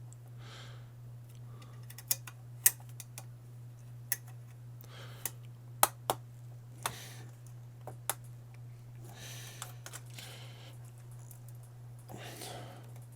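Irregular sharp clicks and taps of a metal X-clamp and heatsink being handled and pressed onto an Xbox One S motherboard, with soft rustling in between. A steady low hum runs underneath.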